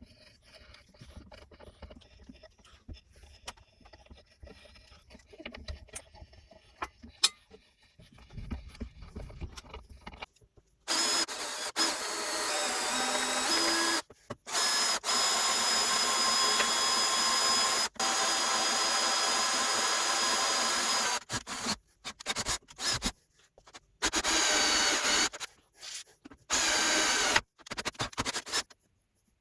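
Faint clicks and knocks of handling, then a power tool running loud and steady in several stretches, the later ones short, each starting and stopping abruptly.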